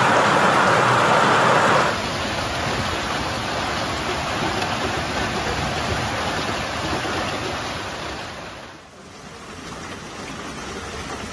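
Heavy hailstorm: hailstones and rain pelting the street in a dense, steady hiss. The sound drops and changes character abruptly about two seconds in, and dips and changes again near the end.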